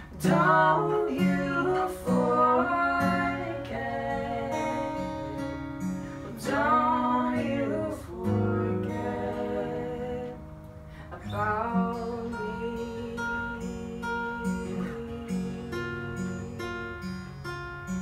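Acoustic guitar picked and strummed, with a voice singing long, wavering lines several times between instrumental passages.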